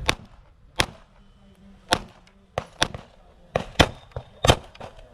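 Pistol shots fired in an irregular string during an IPSC course of fire: about six loud, sharp reports at uneven gaps of around a second, with a couple of fainter shots between them.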